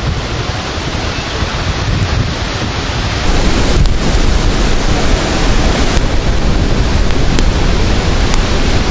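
Strong storm wind blasting across the microphone: a loud, rough rush with heavy low rumbling from the buffeting, getting louder a few seconds in.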